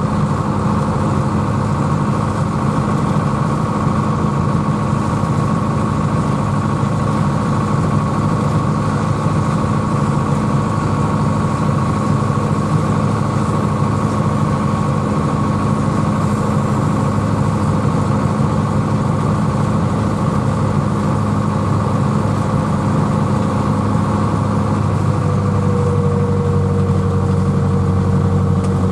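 International Harvester tractor's diesel engine running steadily at road speed, heard from inside the cab, with a steady high whine over it.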